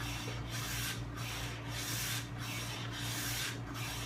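Lie-Nielsen No. 7 jointer plane shaving along a board's edge: a dry hiss of the iron cutting wood in repeated strokes, with brief breaks between them, over a steady low hum. These are the full-length passes that take the edge down a few thousandths of an inch to make it parallel.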